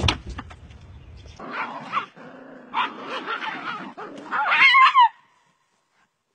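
A few sharp clicks, then a dog yipping and barking in short pitched calls, ending in a loud, wavering high yelp that falls and cuts off suddenly about five seconds in.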